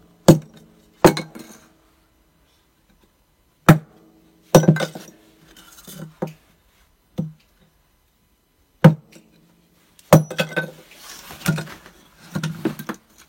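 Kindling being split: a blade struck down into small pieces of wood, a string of sharp knocks at irregular intervals, each with a brief metallic ring, coming faster in the last few seconds.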